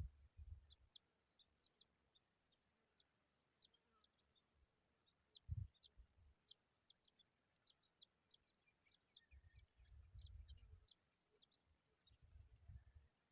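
Faint, short high bird chirps repeated irregularly throughout, with low rumbles and a sharper thump about five and a half seconds in.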